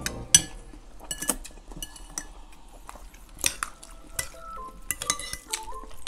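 Spoons and forks clinking and scraping against ceramic bowls as two people eat noodles, in irregular clinks with a sharp one about a third of a second in.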